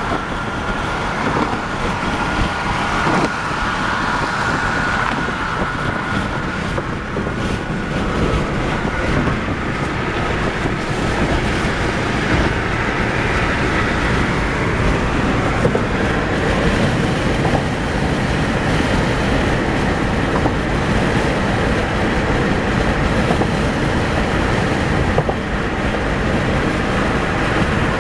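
Steady tyre and wind noise of a car driving at highway speed, heard from inside the car, with a faint high whine that fades out about nine seconds in.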